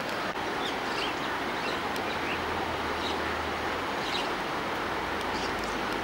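Steady rushing of a fast mountain river's rapids, with a few short, high chirps scattered through.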